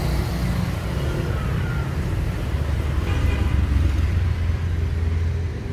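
Low rumble of road traffic, swelling louder for a few seconds in the middle as a vehicle goes by and easing near the end.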